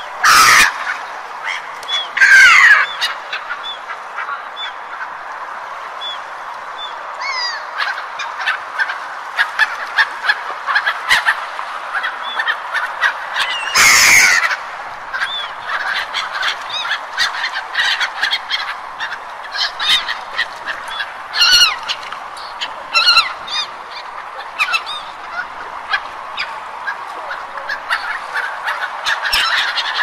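A flock of gulls calling, many short cries coming thick and fast over a steady background rush. There are a few louder, closer calls near the start and about fourteen seconds in.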